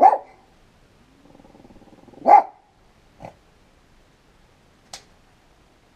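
A dog barking twice: a loud bark right at the start, then a low growl rising into a second bark about two seconds in. Two faint short clicks follow.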